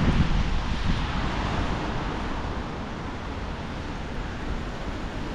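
Wind buffeting the camera microphone in low rumbling gusts over a steady hiss of falling rain on a wet street.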